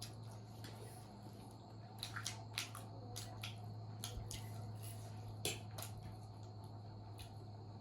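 Wet mouth smacks and clicks of someone eating noodles, scattered through the middle few seconds, loudest twice, over a steady low hum.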